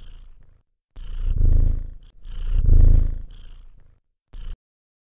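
Domestic cat purring, a sound effect: the purr swells and fades in slow, breath-paced waves, two full swells, then a short last burst that cuts off abruptly about four and a half seconds in.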